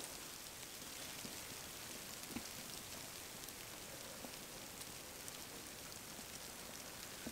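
Small wood fire in a bushbox stove crackling faintly, a few light ticks and pops over a soft steady hiss.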